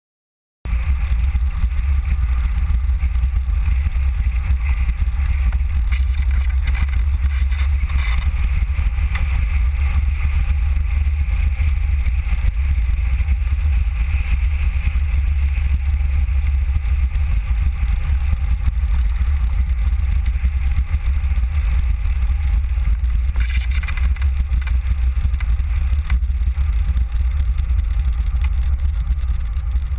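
Steady rumble of wind and road noise from a Mango velomobile rolling along the road, with heavy wind buffeting on the microphone; it cuts in abruptly about half a second in and swells briefly twice.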